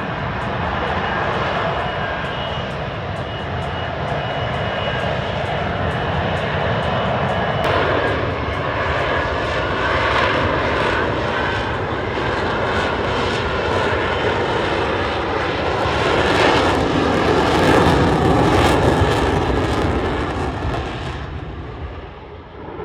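F-35B's Pratt & Whitney F135 jet engine running, a steady rushing roar with a thin high whine in the first third, growing to its loudest about two-thirds through and then fading away near the end.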